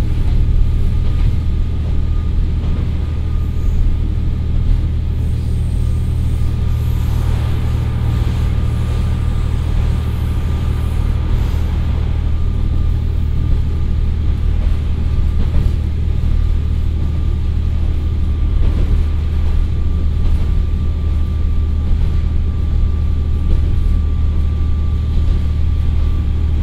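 Onboard sound of a JR Kyushu KiHa 40 diesel railcar, with a Komatsu SA6D125HE-1 diesel engine and TACN-22-1600 transmission, running at a steady speed and heard from inside the car. A steady low drone and running noise, with a thin, steady high whine over it.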